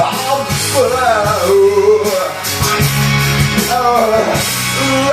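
A rock song playing: a sung melody over guitar, bass and drums.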